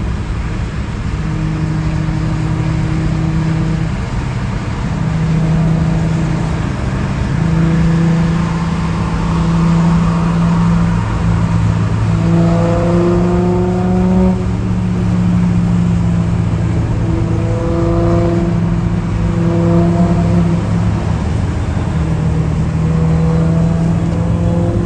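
Car engine droning at cruising speed over steady road noise, heard from a moving car; its pitch holds for a second or two at a time and shifts now and then.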